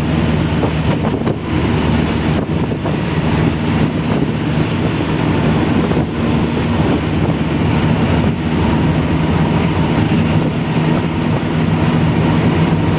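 A vehicle running steadily: a constant low hum under a loud, even rush of wind and road noise.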